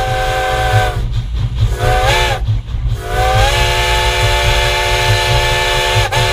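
Steam locomotive 425's chime whistle blowing, several tones sounding together: a long blast that stops about a second in, a short blast that rises in pitch, then another long blast. A low rumble from the working train runs underneath.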